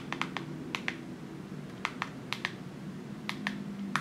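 Plastic navigation keys on a MyPhone My112 rugged feature phone clicking as they are pressed to scroll through its menus: about a dozen sharp clicks, many in quick pairs.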